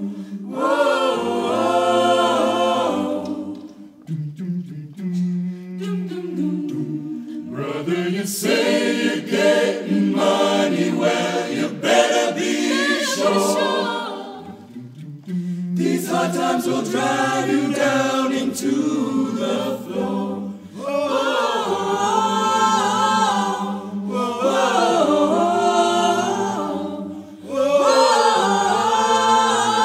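Mixed-voice a cappella choir singing a slow blues arrangement in held chords over a low bass line. The phrases swell and fall back, with brief dips a few seconds in, about halfway, and near the end.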